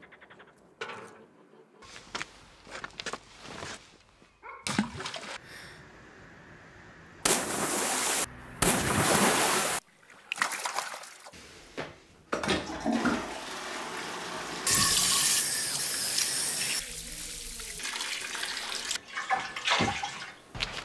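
A rapid montage of short film sound clips, mostly water running and splashing, each cut off abruptly and followed by the next. The loudest stretches of rushing water come about a third of the way in and again past the middle, with quieter clips between.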